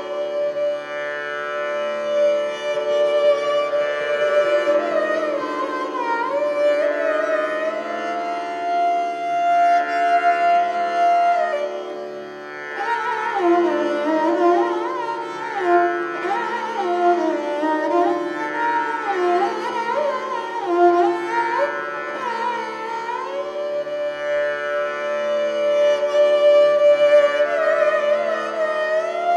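Taus, the bowed peacock-shaped lute of Sikh devotional music, played with a bow: long held notes that glide between pitches over a steady low drone. About halfway through the sound dips briefly, then the phrases become quicker and more ornamented, with many slides.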